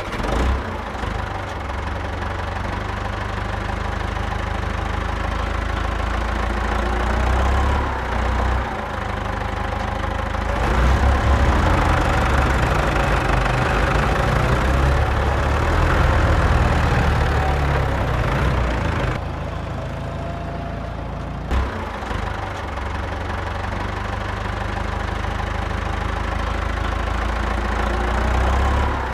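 Battery-powered homemade model tractor loader running on its 12-volt 775 DC motor, a steady mechanical drone with a low rumble as the loader works sand. It eases off briefly about two-thirds of the way through, then runs on.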